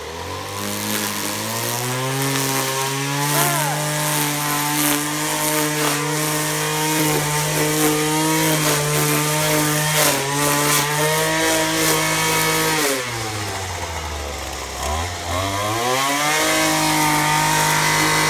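Poulan Pro 25cc two-stroke string trimmer revving up from idle and held at high speed while cutting weeds. It drops back to idle about thirteen seconds in, then revs up again near the end.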